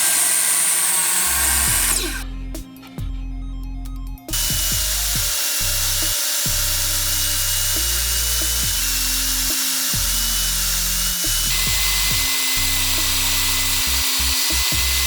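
A power tool running, cutting the wooden panel pieces: a high steady whine for about two seconds, then after a short break a long second run that starts about four seconds in. Background music with a stepping bass line plays underneath.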